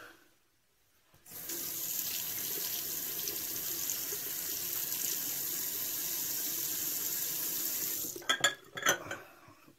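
Tap water running steadily into a bathroom sink for about seven seconds, then stopping, followed by a few short knocks.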